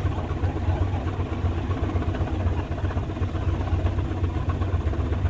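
A truck engine running steadily at low speed, a continuous low rumble.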